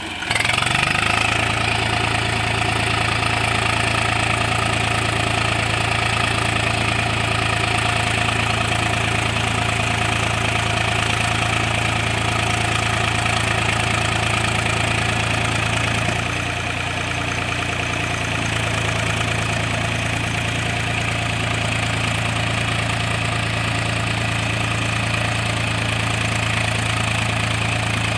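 Swaraj 834 XM tractor's three-cylinder diesel engine running at a steady speed, with a brief slight dip in level about two-thirds of the way through.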